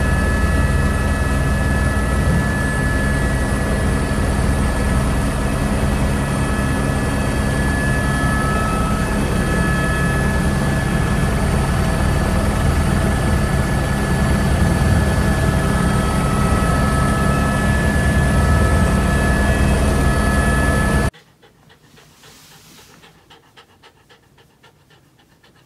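Helicopter running steadily: a constant engine whine with several held tones over dense, low rotor noise. About 21 seconds in it cuts off suddenly.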